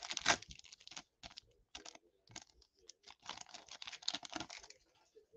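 Foil wrapper of a Topps baseball card pack crinkling and tearing as it is opened by hand and the cards are pulled out, in two bursts of crackling about a second long each, with scattered light ticks between.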